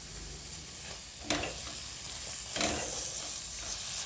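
Grated-carrot halwa sizzling steadily in ghee in a kadai, with two strokes of stirring scraping through it about a second apart. The ghee has separated out, so the halwa is almost done.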